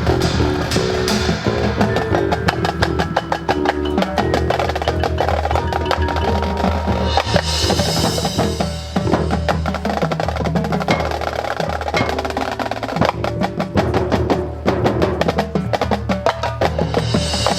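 High school marching band playing its field show: fast drum and percussion strokes and rolls over held band chords.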